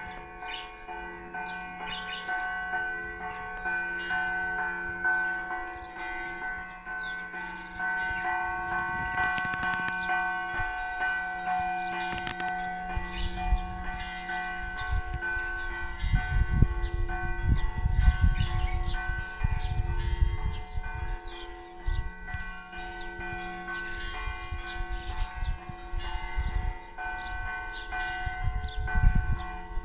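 Several church bells in a bell tower ringing together, struck again and again so their tones overlap and keep ringing on. Bursts of low rumble come and go under the bells in the second half.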